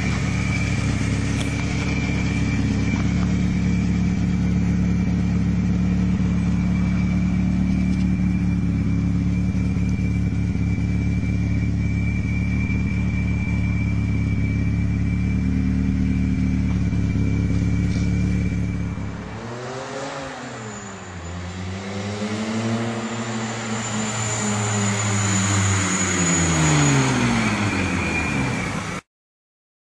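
Volkswagen Golf Mk2's engine running steadily through its exhaust, with a thin steady whine above the engine note. About twenty seconds in the note drops, then swings up and down in slow sweeps. The sound cuts off suddenly near the end.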